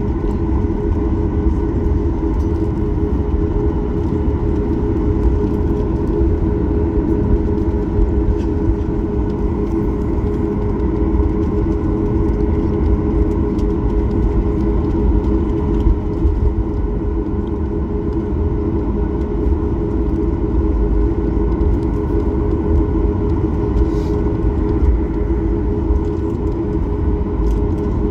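Inside the cabin of a Boeing 737 MAX 8 taxiing: the steady hum of its CFM LEAP-1B engines at low taxi thrust over a constant low rumble.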